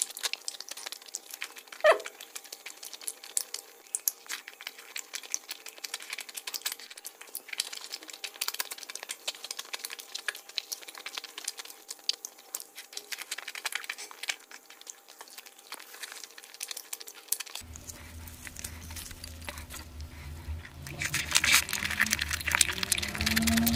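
Close-miked eating: a steady stream of small wet mouth clicks and smacks with crackling as puri and curry are torn and chewed, one sharper click about two seconds in. Near the end it changes to a fuller, louder recording of the same kind of eating clicks, with a faint gliding tone.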